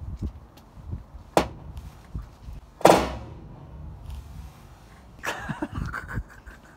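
Heavy hammer blows on a rotten wooden fascia board, knocking it loose: two sharp strikes about a second and a half apart, the second the louder, with a few lighter knocks between.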